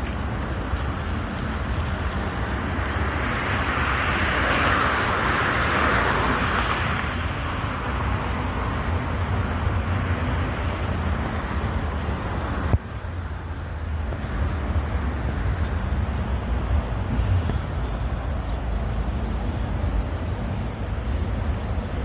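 Outdoor road traffic noise, with a steady low rumble and a vehicle passing loudest about four to seven seconds in. A click and a sudden change in the background about two-thirds of the way through.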